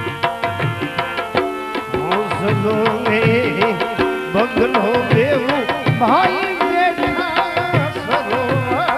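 Gujarati devotional bhajan music: tabla playing a steady beat under sustained instrumental tones, with a singer's wavering voice coming in about two seconds in and carrying on.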